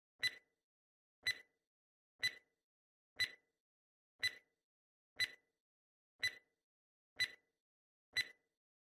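Countdown-timer tick sound effect: sharp single ticks once a second, nine in all, with silence between them, marking off the seconds of a 10-second answer timer.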